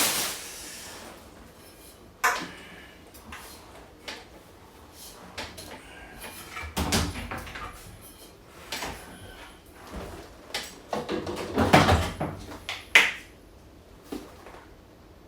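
Household handling sounds: scattered knocks and clicks with bouts of rustling, as things are moved about and doors or cupboards are worked. The busiest stretch comes toward the end, with a sharp knock near the end.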